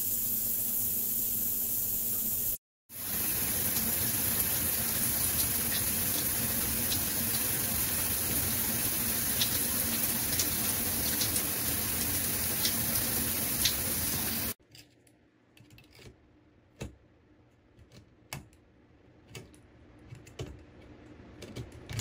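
Shower water running in a steady hiss, broken by a brief dropout a few seconds in. About fourteen seconds in, the water sound stops and a run of separate light clicks follows as the handheld shower head is worked in its chrome wall bracket.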